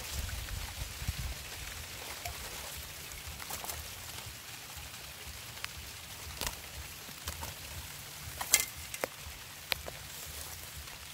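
Faint outdoor background hiss with a few scattered sharp clicks and taps, the loudest about eight and a half seconds in.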